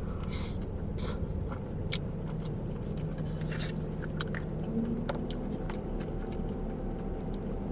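Close-up chewing and biting of food, with scattered short mouth clicks and crunches over a low steady hum.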